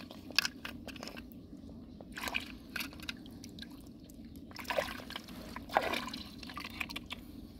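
Shallow muddy water sloshing and splashing as hands scoop snails up from the pool, with water dripping and trickling off the handful in short irregular splashes.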